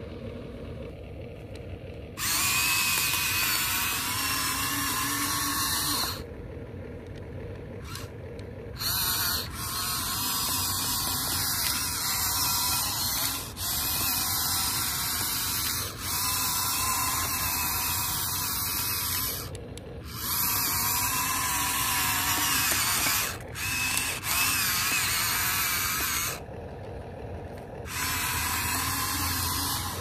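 Electric motors and plastic gearboxes of an RC excavator whirring in stop-start stretches of a few seconds each as its arm and tracks are driven, with a ratchety gear sound and quieter pauses between moves.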